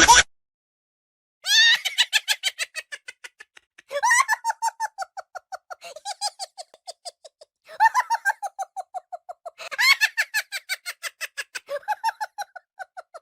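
An animal calling in six bouts of rapid, pitched notes, about five a second, each bout starting loud and fading away, with a laugh-like sound.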